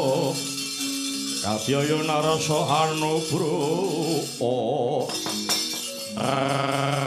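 Javanese gamelan music for a wayang kulit shadow-puppet play: sustained pitched tones under a voice singing a wavering, ornamented melodic line that breaks off and comes back. A few sharp clacks sound about five seconds in.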